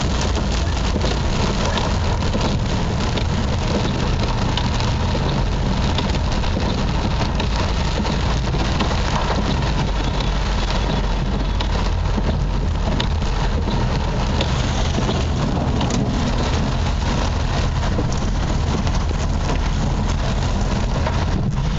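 Steady rain during a thunderstorm: a dense, even hiss packed with small pattering ticks, with no distinct thunderclap standing out.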